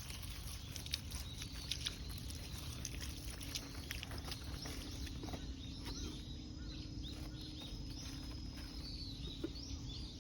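Outdoor ambience: birds chirping with short, scattered calls, over a low wind rumble on the microphone and a steady faint hum.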